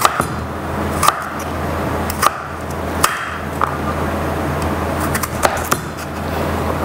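A crinkle-cut knife chopping through butternut squash and knocking on a wooden cutting board, irregular sharp knocks about once a second with a quick cluster of three a little after five seconds, over a steady low hum.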